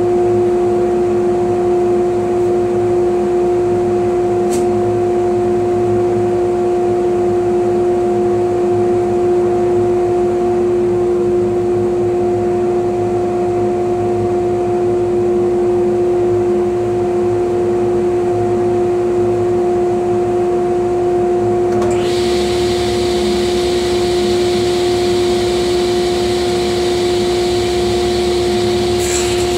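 Jet JTAS-10XL cabinet table saw running at speed, a loud steady hum. About 22 s in, a hiss and a low rumble join the hum and carry on.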